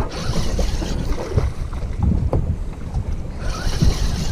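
Wind buffeting the camera microphone as a heavy, uneven low rumble over the sea, with two spells of hissing spray or water noise, one at the start and one near the end.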